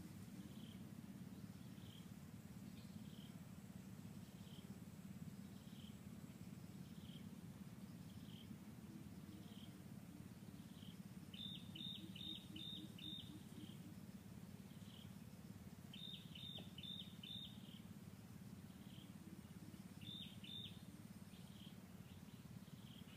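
Faint forest ambience: a high, thin chirp repeating about once a second, broken by quick runs of four or five chirps twice and a shorter run later, over a low steady rumble.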